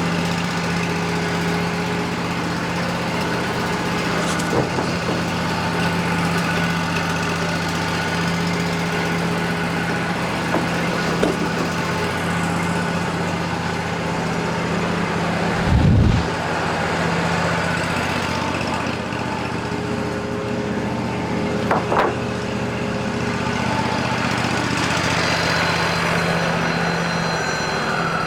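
Wood-Mizer LT40 sawmill's engine running steadily, with a few knocks and one heavy low thump about two-thirds of the way through as the log and slabs are handled.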